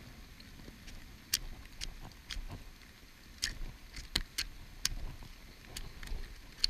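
Heavy rain, with scattered sharp drops ticking close by at irregular intervals over a low rumble.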